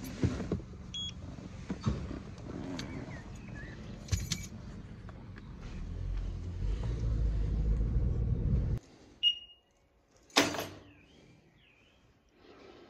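Car at low speed beside an access-gate card reader, which gives one short beep about a second in. The car then drives on, its engine and road noise building until it cuts off to quiet near the end, where a single loud knock sounds.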